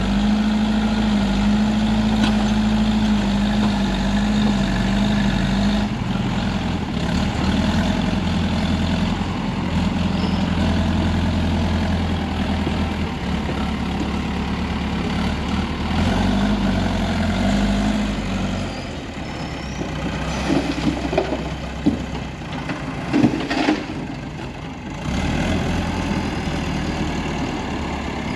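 Heavy diesel machinery engine running, its pitch wavering as it works. The engine eases off about two-thirds of the way through, a few sharp knocks or clanks follow, and then it picks up again near the end.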